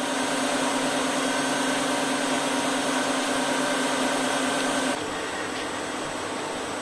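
An Autopulit brush satin-finishing machine running: a steady motor whir with a low hum. About five seconds in it drops to a slightly quieter, duller noise.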